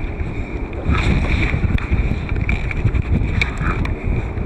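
Wind buffeting the microphone in a steady low rumble, with scattered faint clicks and knocks.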